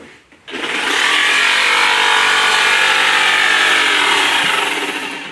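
Electric power saw cutting wood: it starts abruptly about half a second in, runs loud and steady for about four seconds, then winds down near the end.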